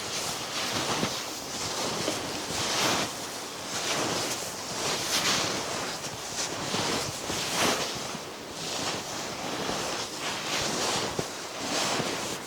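Strong snowstorm wind gusting, a rushing noise that swells and fades every second or two.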